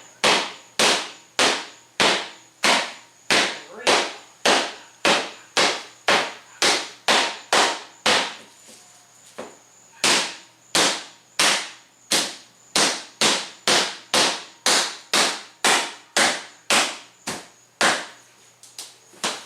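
A car windshield, wrapped in garbage bags and duct tape, being struck over and over: about thirty sharp blows, nearly two a second, with a short pause midway. The glass is not shattering under the blows, which the owner puts down to the duct tape he put all over it.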